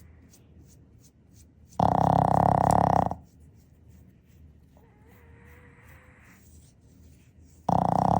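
Boston terrier snoring in its sleep: two loud snores, each over a second long, about six seconds apart, the second starting near the end. Between them comes a faint whistling, hissing breath.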